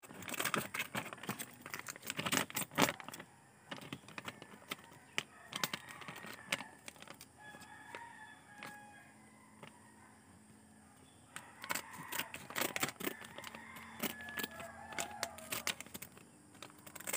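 Metallized foil snack wrapper crinkling and rustling as it is cut with scissors, in clusters of sharp crackles and snips. A chicken calls in the background between the bursts, about halfway through and again near the end.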